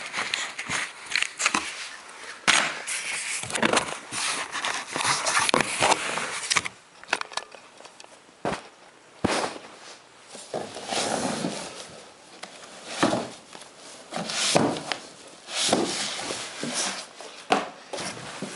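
Packaging being handled as a keyboard is unpacked: a dense crinkling rustle for the first six seconds or so, then scattered sharp knocks and clicks with softer rustling between.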